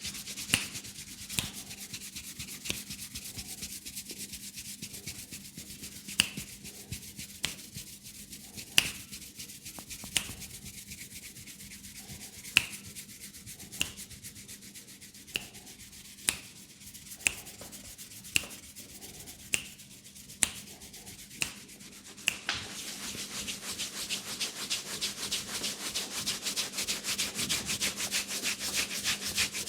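Fingers rubbing and scratching through hair on the scalp during a head massage, with a sharp click about once a second. About 22 seconds in the clicks stop, and the rubbing turns faster and louder. A faint steady hum lies underneath.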